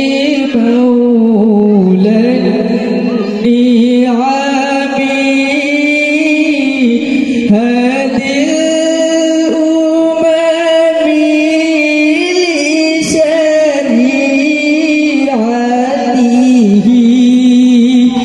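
A boy singing an Islamic gojol (devotional song) solo into a microphone, holding long notes that waver and slide between pitches, with no instruments.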